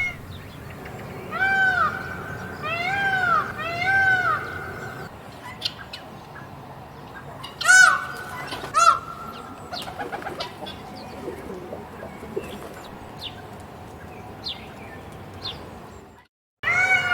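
Peacock calling with loud, arching, wailing calls: three in quick succession a second or two in, then two more around the middle. Small birds chirp faintly in between.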